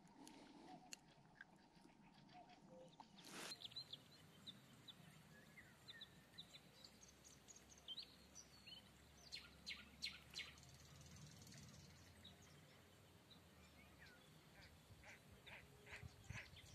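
Faint waterside ambience with scattered bird chirps and calls, and a run of quick repeated calls near the end.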